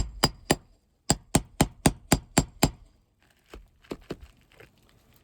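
Roofing hammer striking a steel nail puller to drive it under a deeply set roofing nail in a three-tab shingle. It gives quick, sharp metal-on-metal taps, about four a second: a few at first, a short pause about a second in, a run of about seven, then a few lighter taps.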